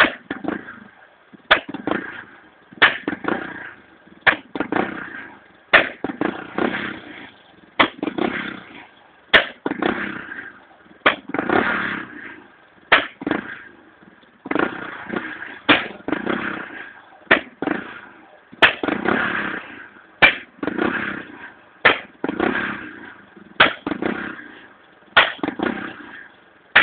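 Honda EX5 single-cylinder four-stroke engine misfiring: a sharp bang about every one and a half seconds, each followed by a brief swell and fade of engine noise.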